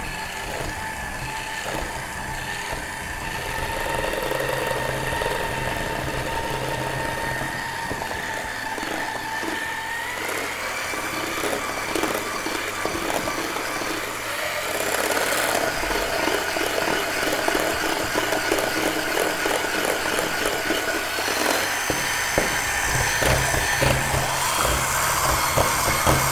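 Electric hand mixer whipping cream cheese, powdered sugar and heavy cream into a thick frosting. Its motor whines steadily, started at the lowest speed, and the pitch steps up about ten seconds in as the speed is raised, then shifts again later.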